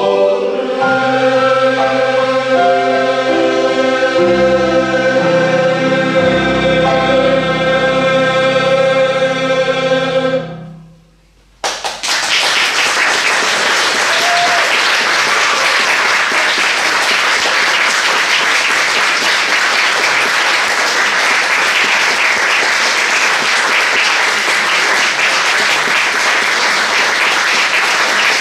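Men's choir singing the last phrases of a song and holding a final chord, which fades out about ten seconds in. After about a second of silence the audience breaks into applause that carries on to the end.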